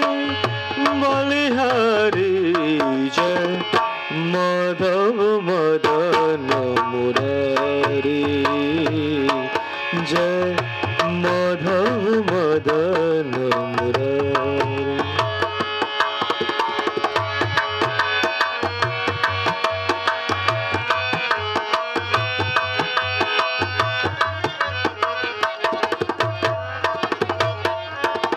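Dholak drum and harmonium playing a devotional bhajan, starting abruptly. For roughly the first fifteen seconds a man sings a drawn-out, pitch-bending melody over them. After that the harmonium's held chords and the dholak's steady beat carry on alone.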